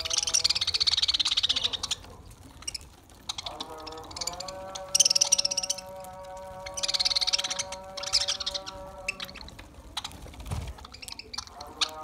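Budgerigar flock chattering and warbling in several bursts over background music with long held notes.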